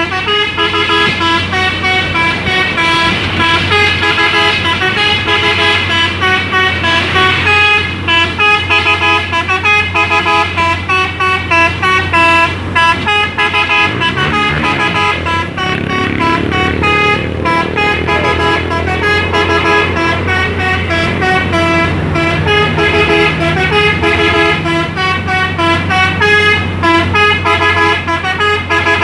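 Hino dump truck's telolet horn, a set of musical air horns, playing stepped notes as a tune over and over without a break. A steady low hum runs underneath.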